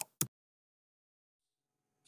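Two last computer keyboard key clicks, a typing sound effect, in the first quarter second, then dead silence.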